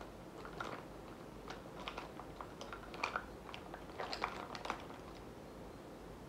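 Irregular soft clicks, taps and light scrapes of makeup and applicators being handled and worked on the face, a little busier around three and four seconds in.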